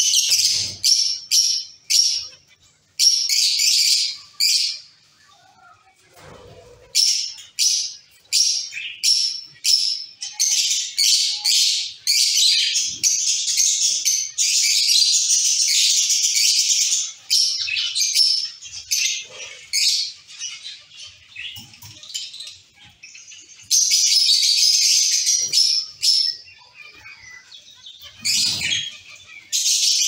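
A colony of zebra finches calling: many short chirps overlapping one another, thickening into dense spells of chatter now and then.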